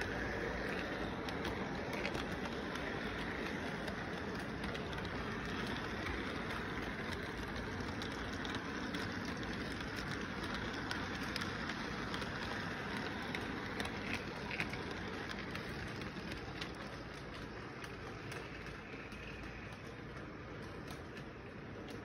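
Model train running along its track: a steady rumble of wheels and motor with small scattered clicks, easing off a little near the end as the train moves away.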